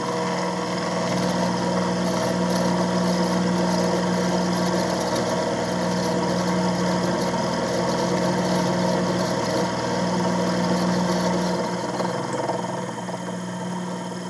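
Shop-built mini mill with a TAIG lathe headstock running under load as a four-flute 3/8-inch end mill cuts into a block of aluminium: a steady motor-and-spindle hum with a busy cutting noise over it. The sound thins somewhat about twelve seconds in.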